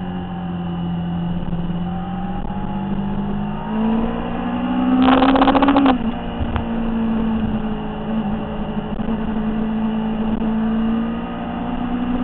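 Motorcycle engine running under way, picked up by a camera mounted on the bike. About four seconds in the revs climb to a loud peak, then drop back abruptly just before six seconds and the engine settles into a steady run.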